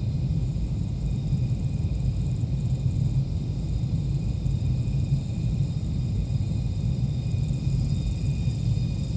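Seafloor motion recorded by an ocean-bottom seismometer and sped up 360 times into hearing: a steady, deep, churning rumble of ocean microseisms. Faint thin high steady tones above it are the engine and propeller noise of passing ships, and they grow a little stronger near the end.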